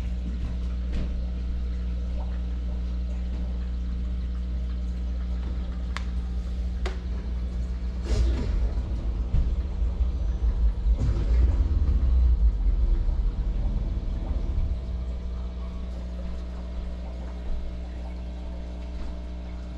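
Steady low electric hum of aquarium equipment. Irregular rumbling and a couple of sharp knocks come midway, as the camera is handled and moved through the tank.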